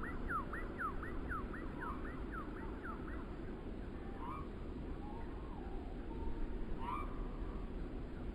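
Wind blowing through trees, a steady low rumble, with a bird singing a rapid run of falling whistled notes, about five a second, that stops about three seconds in; a few single calls follow.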